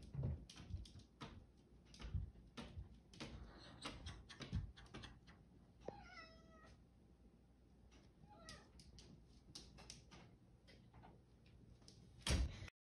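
A cat meows once about six seconds in, with a fainter meow a couple of seconds later. Through the first half, and once more loudly near the end, there are short light knocks and rattles from the cat pawing and pushing at a metal baby gate.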